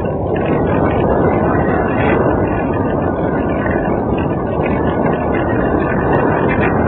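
Wind rushing over the microphone of a camera mounted on a radio-controlled glider in flight: a steady, loud rush with no tone in it.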